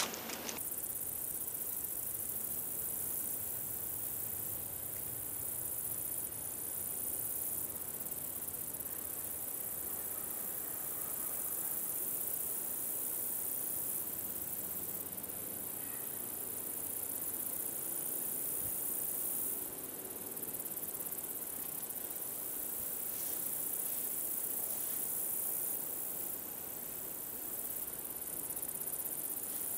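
Steady, very high-pitched chorus of insects buzzing in dry woodland, swelling and easing a few times, with a few faint crackles near the end.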